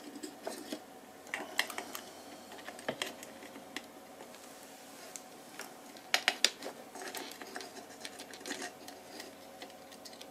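Irregular light clicks, taps and scratches of a soldering iron and wire leads being worked against an LED chip inside a metal floodlight housing, with a cluster of sharper clicks about six seconds in.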